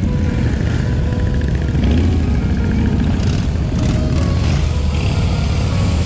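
Several V-twin cruiser motorcycles running at low speed as the group rides off one after another, a steady deep rumble. Music plays over the engines.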